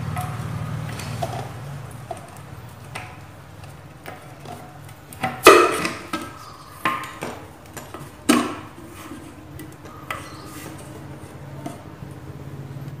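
Screwdriver prying the lid off a metal paint can: scattered metallic clicks and taps, with two sharper knocks about five and a half and eight and a half seconds in.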